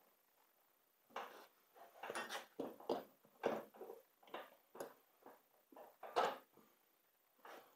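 Rubber of a snowblower tire and inner tube rubbing and scuffing as hands and a screwdriver work the old tube out of the wheel. It comes as a string of short, irregular scrapes, starting about a second in.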